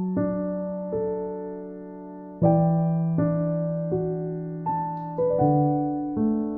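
Background music: a slow, gentle piano melody, single notes struck about once a second, each ringing out and fading over a sustained bass note.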